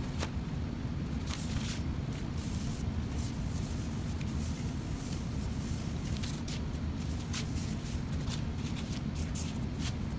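Short hissing bursts of spray onto a cast iron saw table, with a shop towel wiping the metal and sandpaper sheets being handled, over a steady low background rumble.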